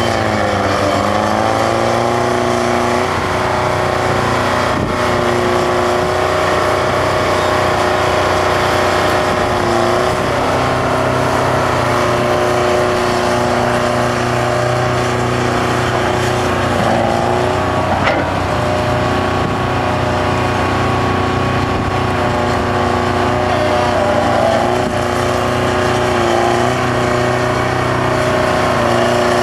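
Bucyrus-Erie 20-H excavator's Detroit Diesel 4-71 two-stroke engine running steadily under load. Its pitch sags for the first few seconds as the engine lugs, then recovers, and dips briefly a few more times as the machine swings and digs.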